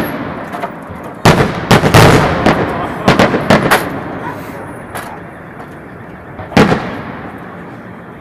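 Aerial firework shells bursting with sharp bangs, each followed by a fading echo: a rapid run of bangs over the first four seconds, then single bangs about five and six and a half seconds in.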